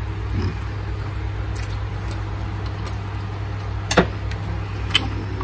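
Two sharp clicks about a second apart near the end, the first the louder, over a steady low hum: small hard parts being handled and set down on a workbench.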